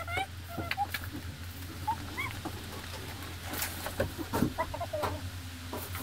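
Short bird calls, scattered and irregular, over a steady low hum, with a few sharp clicks.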